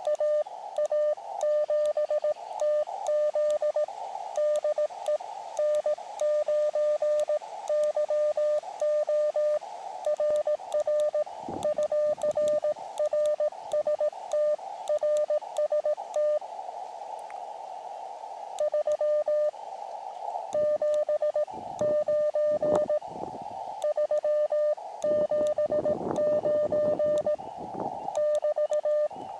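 Morse code from an Elecraft KX2 transceiver: a single steady tone keyed on and off in dots and dashes as a paddle sends, over receiver hiss. Some low rumbling comes in near the middle and toward the end.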